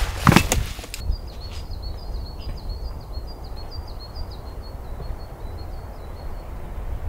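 Scuffs and knocks of gloved hands and boots on rock in the first second, then a small songbird singing a long run of quick high chirps for about four seconds over a low steady rumble.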